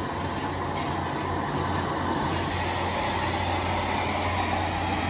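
Steady roar of a gas stove burner flaming under pots of boiling water, with a low hum underneath.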